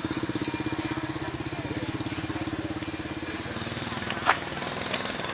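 A small engine running steadily with a fast pulsing hum. Its pitch drops a little about three and a half seconds in, and there is a single sharp click a little after four seconds.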